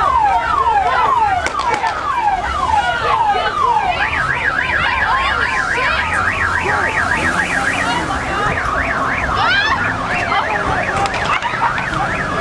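Emergency vehicle sirens, more than one at once. A repeated wailing sweep switches about four seconds in to a fast up-and-down yelp, then slower wails return.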